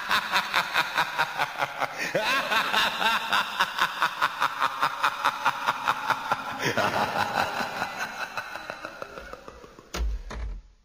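A long run of laughter, about three 'ha' pulses a second, fading out over the last few seconds; then a short deep rumble near the end before it cuts off.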